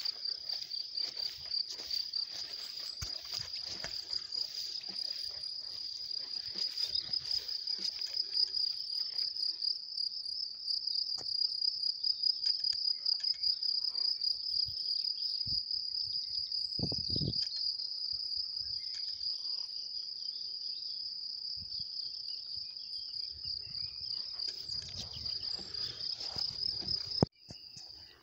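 Crickets chirring steadily in a rapid, high, pulsing trill, with faint low rustling beneath. A sharp click comes about a second before the end, after which the chirring is quieter.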